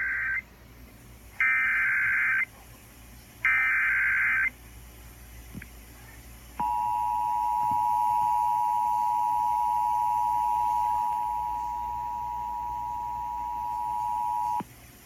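Emergency Alert System header from a weather radio broadcast: three short bursts of warbling data tones about two seconds apart, then the long, steady two-tone attention signal, held for about eight seconds before it cuts off. These mark the start of a new severe thunderstorm warning.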